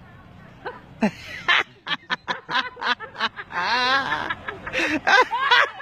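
Laughter starting about a second in: short quick bursts, a long high wavering stretch near the middle, then more bursts.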